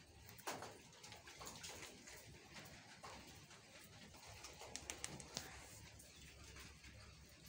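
Faint, low cooing-like calls from chickens, with a short louder sound about half a second in and a few light clicks around five seconds in.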